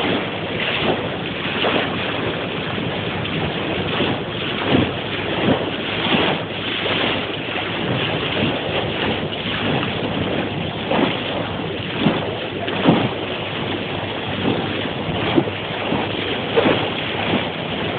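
Bow wave of a moving boat rushing and splashing below the microphone, with wind buffeting the microphone and short irregular splashes standing out every second or so.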